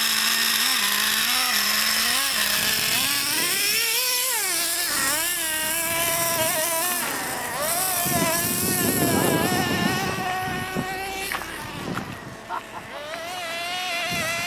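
Revo nitro RC car's small glow engine running: it holds a steady idle at first, then revs up and down again and again as the car drives away. It fades about twelve seconds in and grows louder again near the end.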